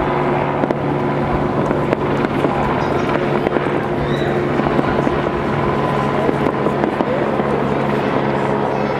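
Aerial fireworks going off continuously: a dense, steady wash of bursts and crackling with no single standout bang. A constant low hum runs underneath.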